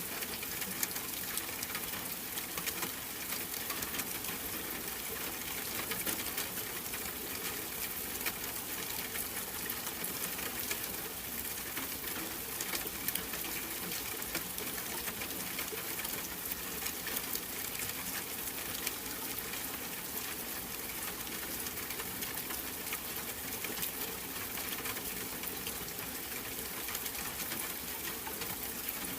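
Steady rain falling: a continuous hiss dotted with many small drop ticks.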